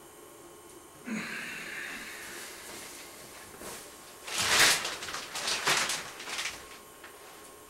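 A shower curtain and its plastic liner pulled along the curtain rod: several short scraping, rustling pulls, the loudest about halfway through. A softer hiss starts suddenly about a second in and fades over a couple of seconds.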